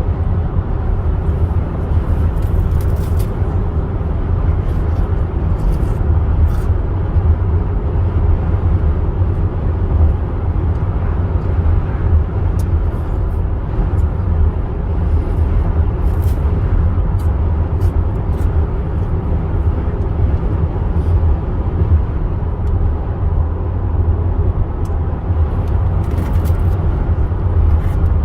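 Steady low road and engine rumble heard from inside a moving car, with a few faint scattered ticks.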